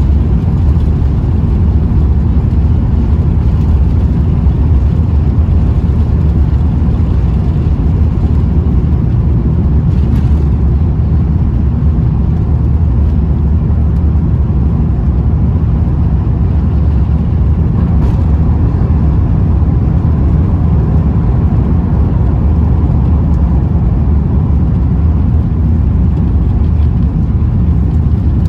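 Airbus A350-900 cabin noise during takeoff and climb: a loud, steady low rumble of the Rolls-Royce Trent XWB engines and airflow, heard from inside the economy cabin.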